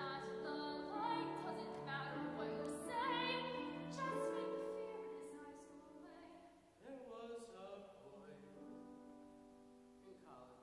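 Musical-theatre duet sung in a trained voice with piano accompaniment. Long held notes fade out after about four seconds, and a quieter phrase from the baritone begins about seven seconds in.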